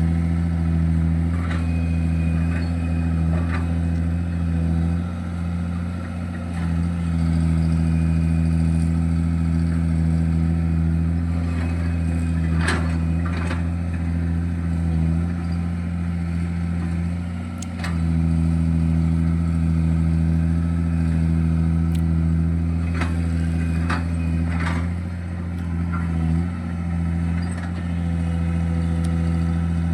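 Diesel engine of a JCB-type earthmoving machine running steadily under load, with its note dipping briefly a few times and several sharp knocks in the middle and later part.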